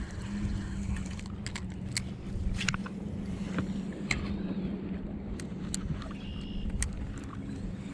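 A bass boat's motor running with a steady low hum, with scattered light clicks and ticks over it.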